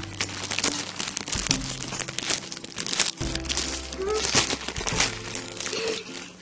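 Plastic poly mailer bag crinkling and crackling as hands pull it open and rummage in it, over light ukulele background music.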